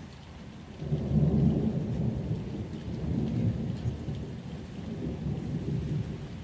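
Rain ambience with a roll of thunder that breaks about a second in and rumbles on, slowly fading.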